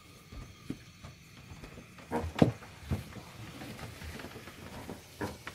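Scattered knocks and thumps on a small boat as people move about and handle the catch, the sharpest a little over two seconds in, with a faint background between them.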